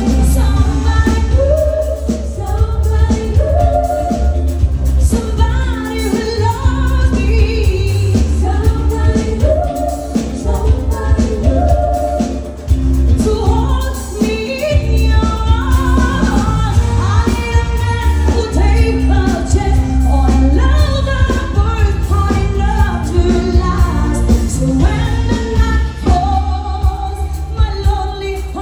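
A pop song performed live: a woman singing the lead melody over a band with a strong, steady bass line.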